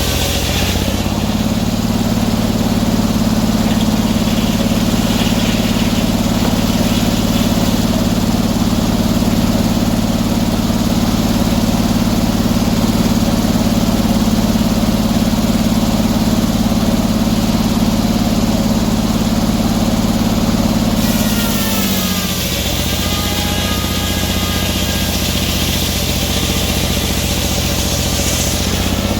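Portable sawmill's engine running steadily at high speed, throttled down about three-quarters of the way through with a falling whine, then revved back up near the end.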